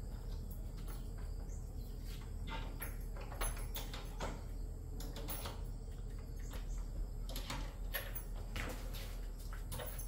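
An old wooden plank door rattling and clicking in irregular knocks as a child's hands work at its latch, over a steady low hum.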